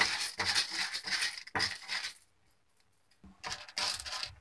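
Wooden spatula stirring chana dal (split Bengal gram) in a metal frying pan, the lentils rattling and scraping against the pan as they roast on low heat. The stirring stops for about a second midway, then starts again.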